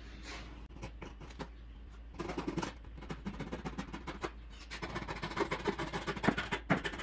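Coping saw cutting by hand through a wooden board to clear a finger joint, its thin blade rasping in quick back-and-forth strokes that come steadily from about two seconds in.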